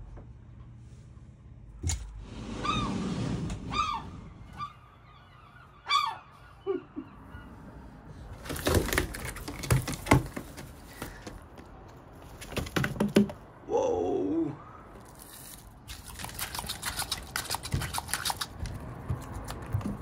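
A gull giving short squawking calls, then pecking at salmon on a windowsill: sharp taps of its bill on the sill, coming thick and fast near the end.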